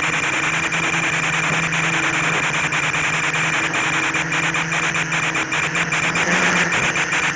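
Quadcopter motors and propellers buzzing steadily in flight over a rushing hiss, with the pitch rising briefly near the end.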